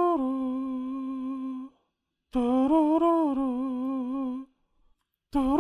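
A voice humming a slow tune in long held notes with a slight waver. It comes in three phrases, broken by short silences.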